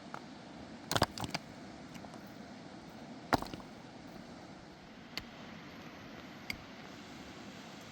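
A few sharp knocks over a steady hiss: a short cluster about a second in, the loudest single knock a little after three seconds, then two fainter ones later.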